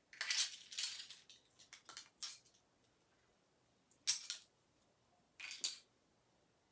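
Hands working open a small plastic surprise egg: rustling and light clicks of handled plastic at first, then two short, sharp crackles about four and five and a half seconds in.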